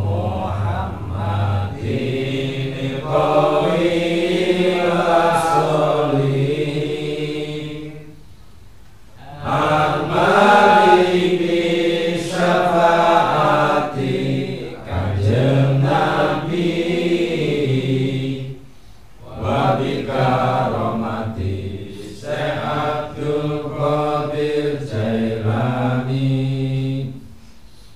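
Male voices chanting an Islamic devotional recitation, sung in long melodic phrases of about eight or nine seconds with a short breath pause between each.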